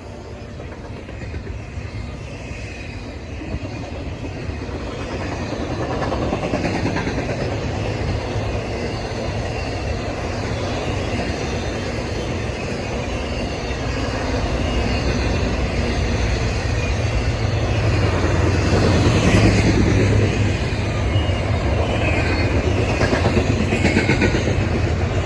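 Intermodal freight train rolling past: a steady rumble and clatter of steel wheels on the rails, building louder over the first several seconds and then staying loud.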